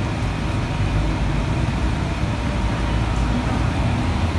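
Steady mechanical background rumble and hiss that runs evenly, with no distinct knocks or clicks.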